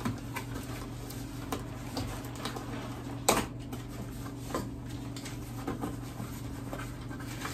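Handheld box cutter slitting the tape on a cardboard box, then the cardboard flaps pulled open and the contents handled: scattered scrapes and clicks, the sharpest a little over three seconds in, over a steady low hum.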